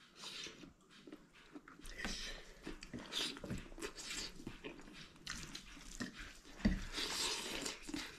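A person chewing a mouthful of rice and meat close to the microphone, with irregular smacking and clicking mouth sounds.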